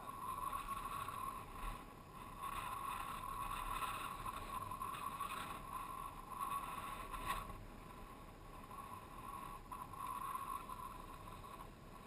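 A small off-road vehicle's engine running with a steady drone that swells and eases, mixed with wind noise on the microphone.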